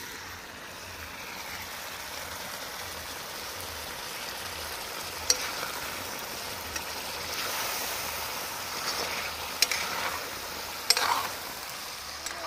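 Chicken curry sizzling in a kadai as a steel ladle stirs it, with a few sharp clinks of the ladle against the pan, the loudest near the end.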